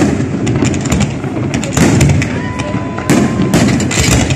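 Aerial fireworks shells bursting in a rapid series of loud bangs, with crackling strikes between the big reports.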